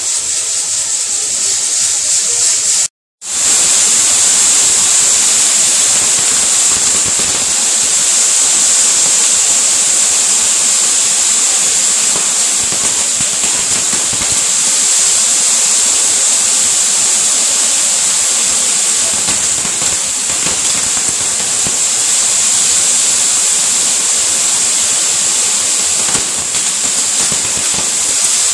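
Ground fireworks, Catherine wheels and spark fountains, giving off a steady, dense hiss that breaks off for a moment about three seconds in.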